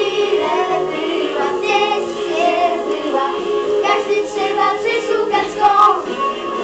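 A song with a young voice singing over an instrumental backing track.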